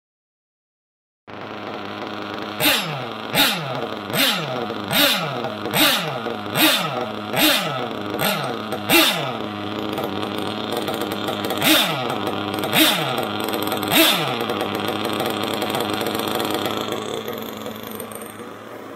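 Agama A215 1/8-scale nitro buggy's small glow engine, blipped to high revs about once a second, each blip falling back toward idle. After about fourteen seconds it runs more steadily, then fades near the end.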